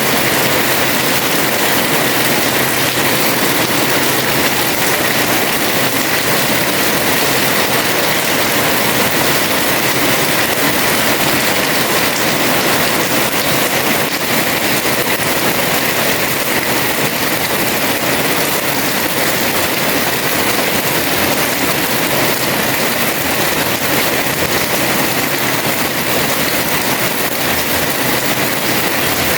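Heavy rain pouring steadily onto a house terrace, a dense, even hiss with no letup.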